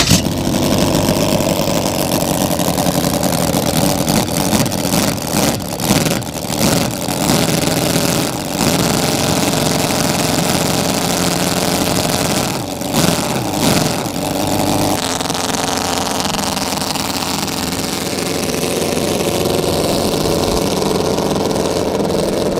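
Scale V16 engine of a 1:3-size Auto Union Type C replica running, a sixteen-cylinder single-overhead-cam engine without a supercharger. It is revved in several short surges in the first half, then runs on more evenly after about fifteen seconds.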